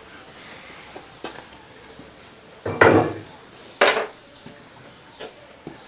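Metal tools and parts being handled and set down: two loud metallic clanks in the middle, with a few lighter clicks around them.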